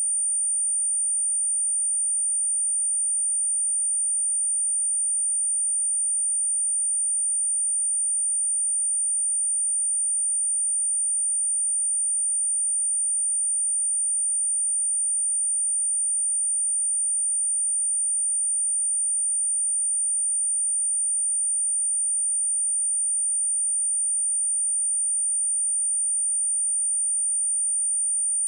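Steady pure sine-wave test tone at 9046 Hz, a single high-pitched whistle held at constant level without change.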